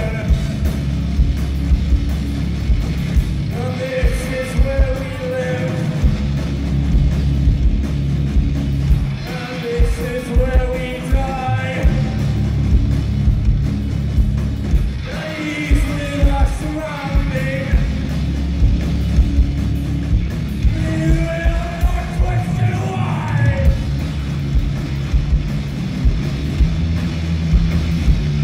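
Live rock band playing loud, with electric guitar and drums under a heavy, steady low end and regular drum hits. A vocal line comes in and out in phrases every few seconds.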